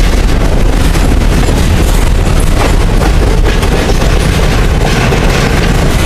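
Freight train cars rolling past at close range: a loud, steady rumble of steel wheels on the rails with scattered clanks and clicks.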